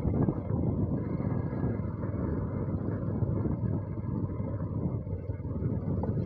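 Motorcycle riding at a steady pace, its engine running evenly under a rush of noise.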